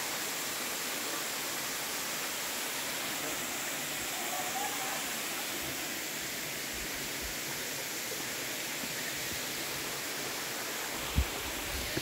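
Steady rush of a waterfall, water pouring and trickling down a rock face. A single thump about eleven seconds in.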